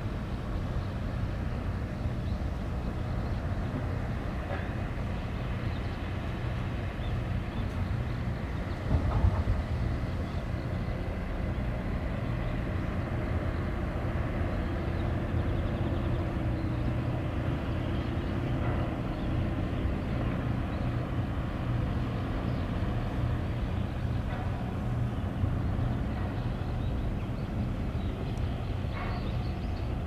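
Steady low outdoor rumble by the sea, with one brief thump about nine seconds in.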